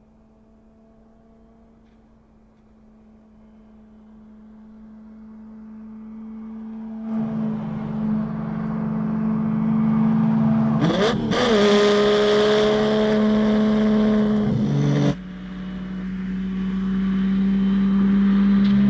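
Lamborghini Miura's V12 engine running hard at speed. It is faint at first and grows steadily louder as the car comes closer, with a quick rise and fall in pitch about eleven seconds in. About fifteen seconds in it drops away suddenly, then builds up again.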